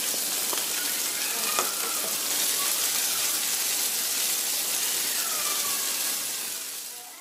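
Hot oil sizzling in a non-stick pan as a tempering of chana dal, mustard seeds, cumin, ginger, green chilli and curry leaves fries, stirred with a wooden spatula that knocks lightly against the pan a couple of times. The sizzle fades away near the end.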